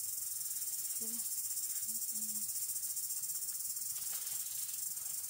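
Steady high-pitched drone of an insect chorus in tropical forest, running evenly without a break.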